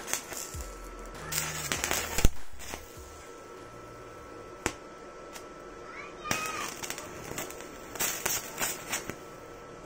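Stick-welding arc from an inverter arc welder crackling and spitting. It comes in bursts as the electrode burns against the steel, with a quieter lull of a few seconds in the middle.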